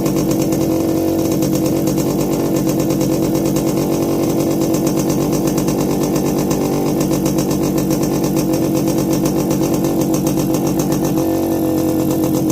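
Yamaha RX100's single-cylinder two-stroke engine running steadily after its rebuild, with a slight change in its note about eleven seconds in.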